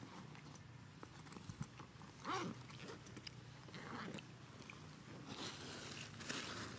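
Young macaque giving a short, soft call about two seconds in, with a fainter one near the middle, amid light rustling.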